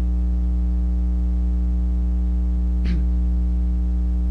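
Steady electrical mains hum with many harmonics, loud and unchanging, with one brief faint noise about three seconds in.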